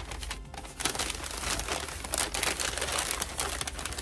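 Paper packaging crinkling and rustling as it is unwrapped by hand, a dense run of small crackles.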